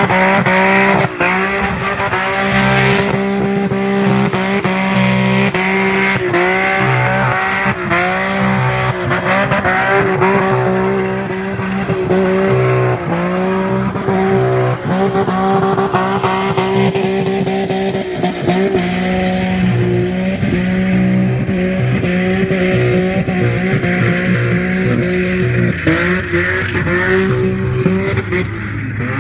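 Car engine held at high revs, the pitch dipping and climbing again and again, with tires squealing as the car slides in circles on loose dirt. The sound grows duller and more distant in the second half.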